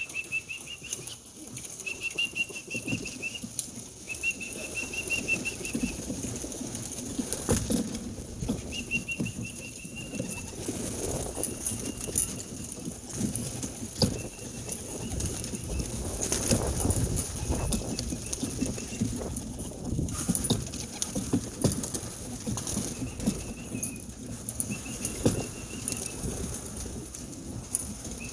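Racing pigeons flapping their wings and fluttering around the loft as they come down and are trapped in. A short trilling bird call repeats every second or two, over a steady high hiss.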